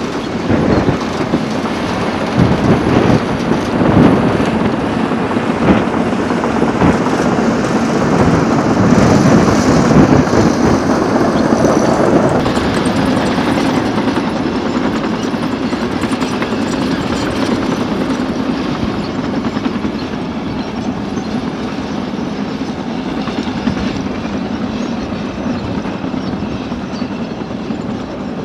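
Heavy diesel earthmoving machinery at work: a diesel engine running under load with rattling and clanking. The clatter is loudest in the first half and settles into a steadier run after about twelve seconds.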